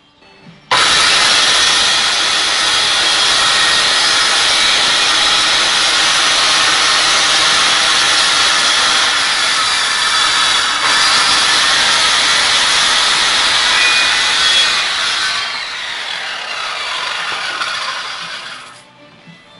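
Bosch handheld circular saw running and cutting through a wooden sheet. About fifteen seconds in it gets quieter and its whine falls in pitch as the blade spins down, then the sound cuts off near the end.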